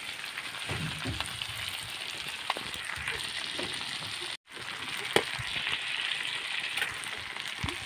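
Chopped frog meat and peppers frying in a black wok, a steady sizzle with a few light clicks. The sound cuts out for an instant about four and a half seconds in.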